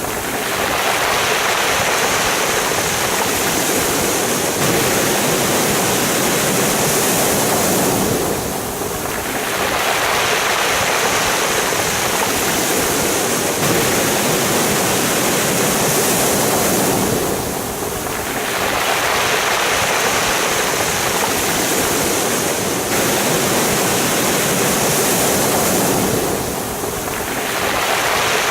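Sea waves washing over a pebble beach: a steady rush of surf and stones, easing off briefly about every nine seconds as each wave draws back.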